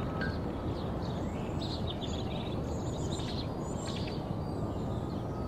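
Small birds chirping in short calls over a steady bed of street ambience.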